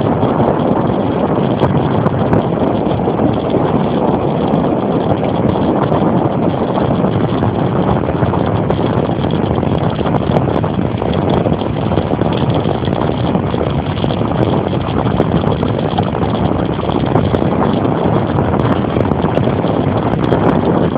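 Steady wind noise buffeting the microphone of a camera riding on a moving bicycle, mixed with tyre noise on asphalt. Scattered small clicks run through it.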